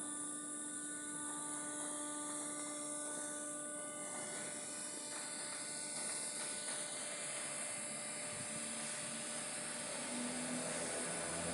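A steady mechanical whir with a high hiss and a few faint steady tones that shift about four seconds in and again near the end.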